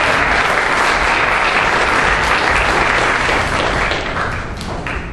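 Theatre audience applauding, thinning out and dying away about four seconds in.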